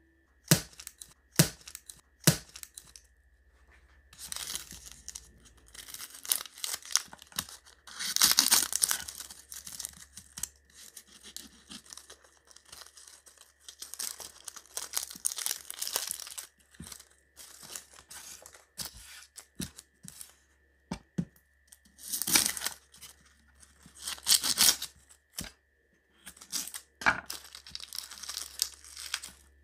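Packaging being torn open and crinkled during food preparation: repeated tearing and rustling bursts about a second long, with a few sharp clicks and knocks at the start.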